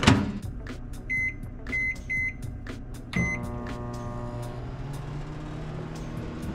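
Countertop microwave oven: the door is shut with a knock, four keypad beeps follow as it is set, then the oven starts and runs with a steady hum.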